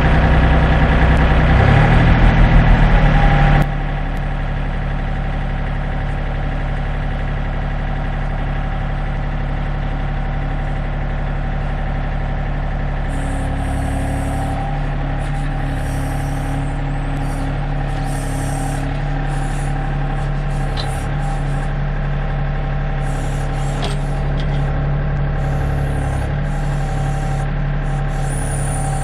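Compact tractor's diesel engine running steadily, louder at first and dropping abruptly to a lower, even level about three and a half seconds in.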